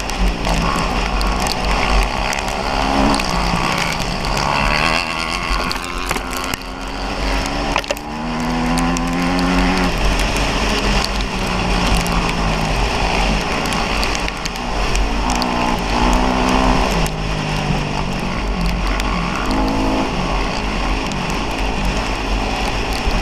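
Kawasaki KX250F dirt bike's single-cylinder four-stroke engine revving up and dropping back several times as the rider accelerates and shifts along a trail, with wind rumble on the microphone.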